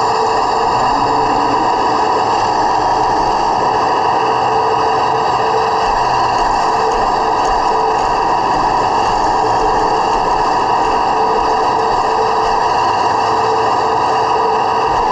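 Heng Long 1/16 RC T-90 tank's onboard sound unit playing a steady simulated engine idle, heard right next to the tank's small speaker.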